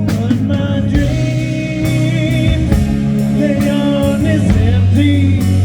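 Rock band playing, with a lead voice singing a held, wavering melody over steady bass, guitar and occasional drum hits.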